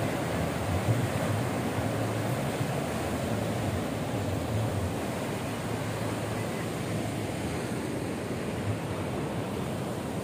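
Sea waves breaking and washing against a rocky shore: a steady rush of surf.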